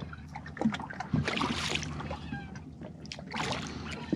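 Water splashing beside a small boat as a hooked Spanish mackerel thrashes at the surface, in two noisy bursts about two seconds apart, over a low steady hum.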